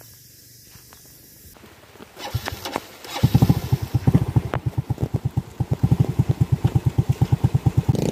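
Motorcycle engine being started: a few uneven bursts about two seconds in, then catching and running at idle with an even, rapid putter of about ten beats a second.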